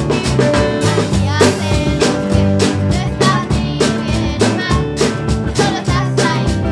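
Live rock band playing an instrumental passage of a song: acoustic and electric guitars, bass guitar and a drum kit keeping a steady beat.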